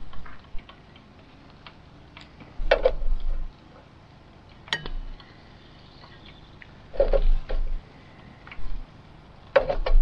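Metal tongs clicking and clattering against a portable grill's grate and a plate in four short bursts as grilled chicken pieces are lifted off.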